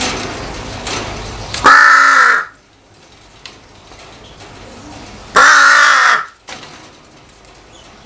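Crow cawing twice: two loud caws, each nearly a second long, about three and a half seconds apart.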